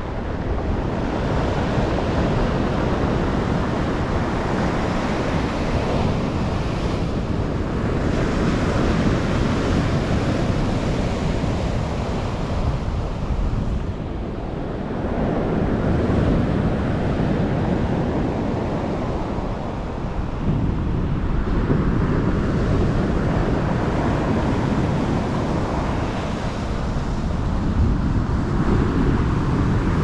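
Black Sea surf breaking on a pebble beach, the waves swelling and easing every six to seven seconds, with wind buffeting the microphone.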